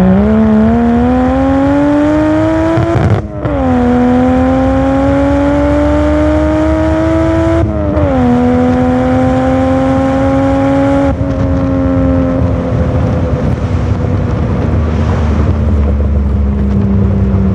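Toyota Supra MK2's 1JZ turbocharged inline-six accelerating hard through its new exhaust system. The revs climb, break briefly for an upshift about three seconds in and again about eight seconds in, and climb again each time. Near eleven seconds the throttle eases off, and the engine holds steady revs that slowly fall.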